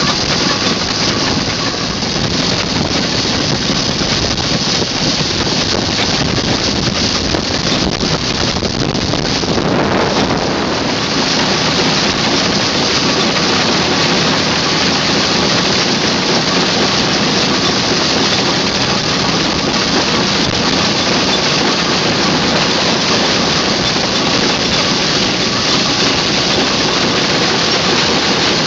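Steady, loud hiss of steam escaping from a steam ploughing engine, with no clear exhaust beat; it grows a little fuller about a third of the way in.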